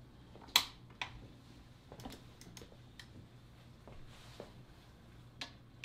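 Torque wrench on the gearbox case bolts, clicking as it reaches its 32 N·m setting: a sharp click about half a second in and another about a second in, then a few fainter clicks and taps.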